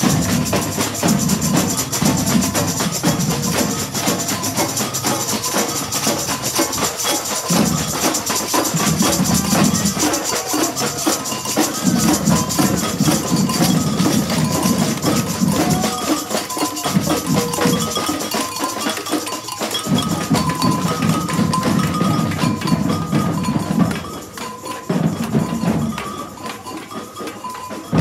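Samba drum band playing live in the street: big bass drums beaten with mallets and snare drums in a fast driving rhythm, with short high tones repeating over the top. The low drums break off briefly every few seconds, and the whole band drops quieter in the last few seconds.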